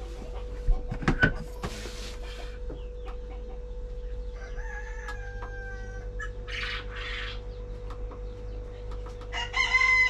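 Roosters crowing twice: one long crow about four seconds in, and a louder crow near the end that falls in pitch as it finishes. A few sharp knocks come about a second in.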